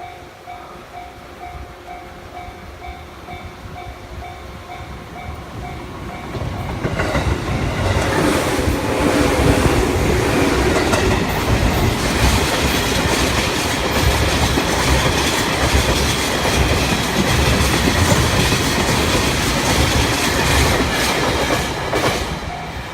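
Japanese level-crossing warning bell dinging in a fast repeating two-tone pattern. About seven seconds in, a train rolls over the crossing: a loud, sustained rumble with clickety-clack of wheels over rail joints that fades near the end as the bell is heard again.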